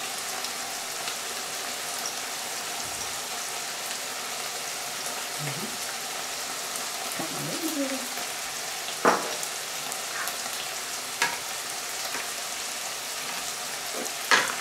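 Mixed beef-and-pork mince frying in a pan with a steady sizzle. Three sharp knocks in the second half.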